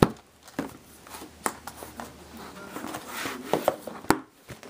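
Cardboard boxes of NFL trading cards being handled and shifted on a desk: irregular light knocks and scuffs, with sharp taps at the start, about one and a half seconds in, and about four seconds in.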